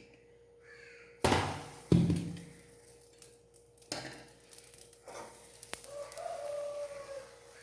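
Metal cookware clanking in a kitchen: two loud knocks close together about a second in, the second ringing briefly, then a lighter knock and small handling sounds.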